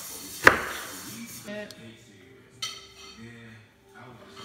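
Kitchen knife chopping pineapple on a wooden cutting board: one sharp knock of the blade hitting the board about half a second in, then a fainter click a couple of seconds later.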